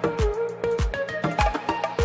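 Background music with a steady beat: a deep kick drum about two and a half times a second under a sliding, pitched lead melody.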